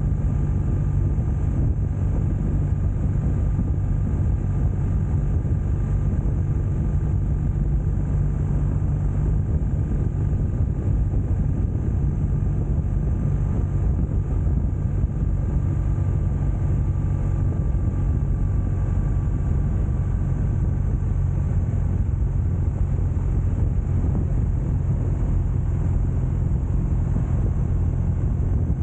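BMW R1200RT's boxer-twin engine running steadily while the motorcycle cruises on the open road.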